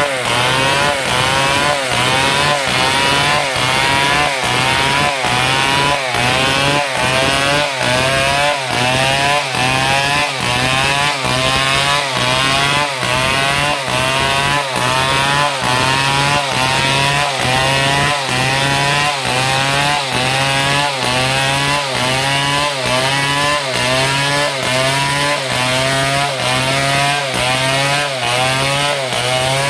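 Stihl MS 070 large two-stroke chainsaw cutting through palm wood under load, its engine pitch repeatedly rising and dropping about one and a half times a second.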